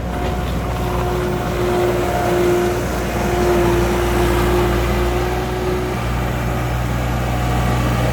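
2003 John Deere 260 skid steer's diesel engine running steadily with a low hum, with a steady whine over it that fades out about six seconds in.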